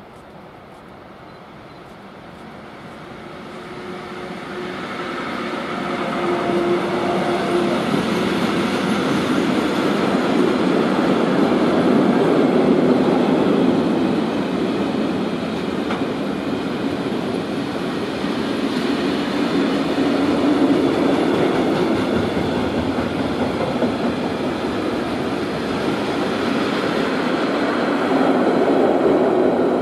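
A class 186 electric locomotive hauling a long train of tank wagons approaches and passes. The noise builds over the first few seconds, then the wagons' wheels roll past on the rails in a loud, steady stream.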